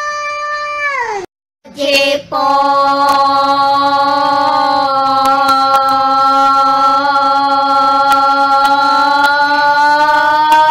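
A voice holding long sung notes: one note falls away and breaks off about a second in, then after a short pause a new note is held steadily for about eight seconds, rising slightly near the end.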